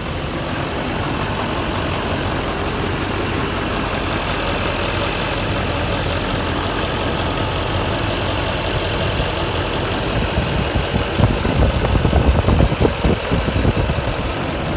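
A 2011 GMC Sierra 2500HD Denali's V8 engine idling steadily, heard with the hood open. Near the end come several seconds of irregular low rumbling buffets on the microphone.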